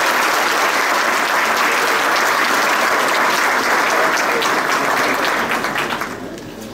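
A large audience in a lecture hall applauding at the close of a talk, steady clapping that fades out near the end.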